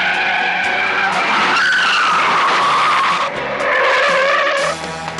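Car tyres screeching as cars brake hard to a stop: a long squeal that slides down in pitch, then a second, shorter squeal that cuts off sharply near the end.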